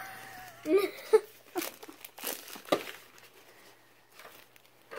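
Plastic blind-bag packaging crinkling and tearing as it is opened by hand, in a run of sharp crackles that fade out in the last second or two.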